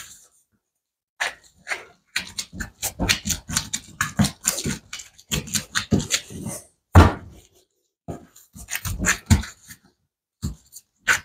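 Hands kneading sticky bread dough: an irregular run of short wet slaps and squelches, broken by a few brief pauses.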